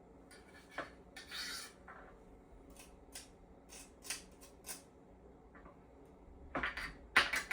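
Scattered short clicks and brief scraping snips of hand work with kitchen utensils, irregular rather than rhythmic, with a louder run of clattering knocks near the end.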